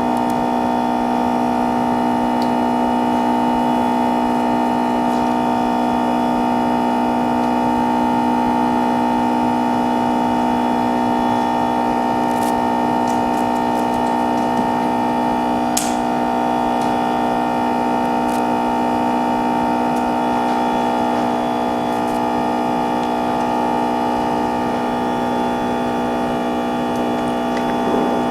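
A steady electrical hum made of several fixed tones, unchanging in pitch and level, with a few faint sharp clicks over it, the sharpest about sixteen seconds in.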